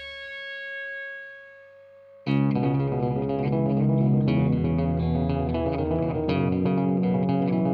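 Background rock music. A held chord fades away, then a little over two seconds in guitar and bass come in abruptly and keep playing.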